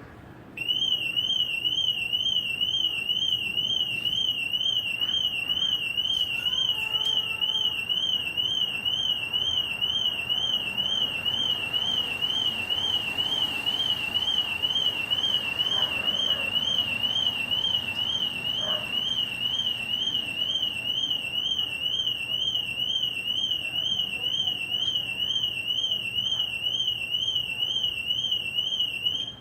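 Car alarm siren sounding: a loud, rapidly warbling electronic tone that starts about half a second in, holds steady, and cuts off abruptly near the end.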